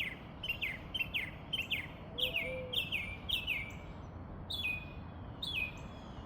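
A songbird calling: a quick series of short chirps that slur downward, about two a second, then two longer calls that drop in pitch near the end.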